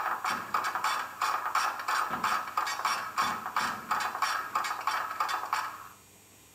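Recorded sound of a British Rail class 08 diesel shunter's fuel hand-priming pump being worked: a quick, regular run of mechanical clacks, played back through the small speaker of a OO-gauge model's Zimo sound decoder. The pumping stops about six seconds in.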